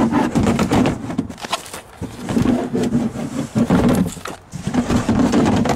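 A Toyota RAV4 cargo floorboard being lifted and set back down, with repeated scrapes, knocks and rough rubbing against the trim and its support.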